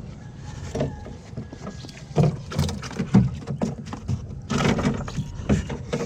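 Irregular wooden knocks and thumps with splashes as a gill net full of fish is hauled into a small wooden boat, starting about two seconds in.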